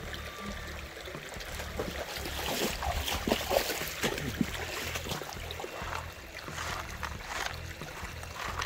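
Shallow creek water splashing and gurgling as it is worked by hand, with a run of louder splashes a few seconds in and another near the end.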